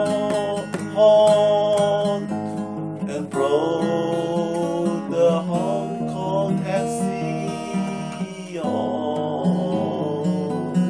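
Instrumental music: strummed acoustic guitar chords with a melody line over them.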